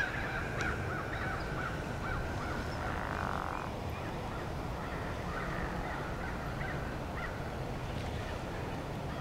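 Wind rumbling on the microphone, with a faint steady whine that stops about three and a half seconds in.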